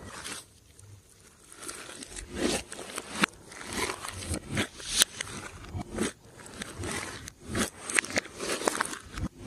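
Glossy slime being squished and worked by hand, making irregular sticky clicks and crackling pops.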